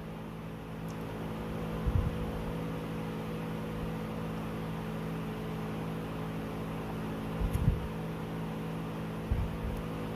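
A steady mechanical hum made of several even tones, with a few soft low thumps.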